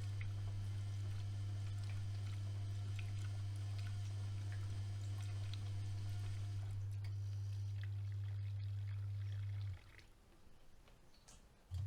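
AEG Öko-Lavamat 76730 washing machine mid-cycle: a steady electric hum from a pump or water valve, with water trickling and small clicks. The hum cuts out for about two seconds near the end, then comes back.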